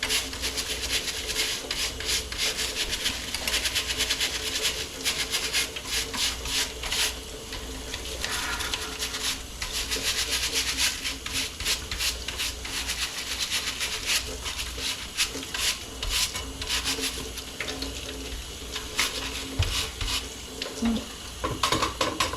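Stiff plastic-bristled brush scrubbing caked seed out of a bird feeder in fast, continuous back-and-forth strokes.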